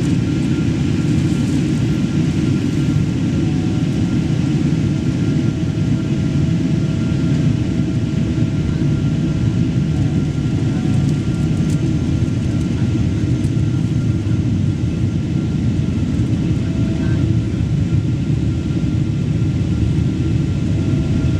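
Boeing 777-200 cabin noise on approach, heard from a window seat by the wing: a loud, steady roar of engines and airflow, heaviest in the low range, with a few faint steady tones above it.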